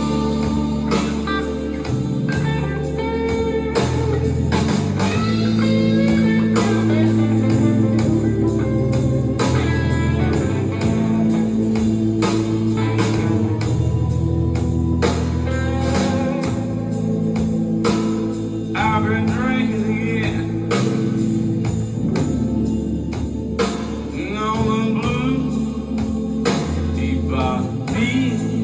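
Blues recording with electric and slide guitar over a steady beat, played back through loudspeakers driven by an 801A valve amplifier.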